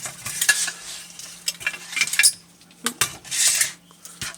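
Irregular sharp clicks and light clatter of small plastic and circuit-board parts being picked up and handled on a workbench, with a brief rustle about three seconds in.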